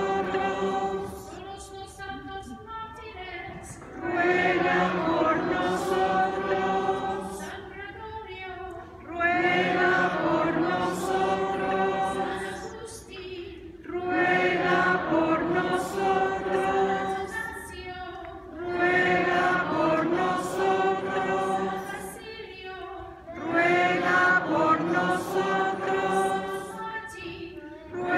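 Sung call-and-response chant: a woman cantor sings a short solo line and the congregation and clergy answer with a longer, louder sung response, five times over at an even pace.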